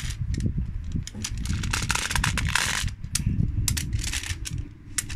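Small magnetic metal balls clicking and clacking as a strand of them is pulled apart and snapped together, with a denser rattle about two seconds in, over a low rumble.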